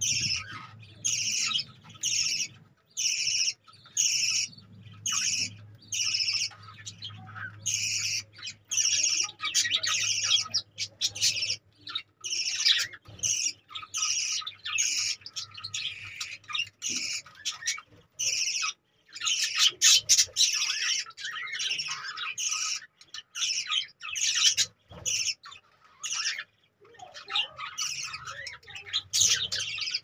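A flock of budgerigars chirping and chattering. For the first dozen seconds there is a run of short, evenly spaced chirps, about one and a half a second, then a denser chattering warble from many birds at once.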